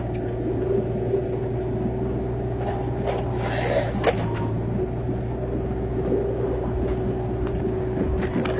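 Excavator diesel engine running steadily with a constant whine from the hydraulics. A short burst of noise about three seconds in ends in a sharp knock.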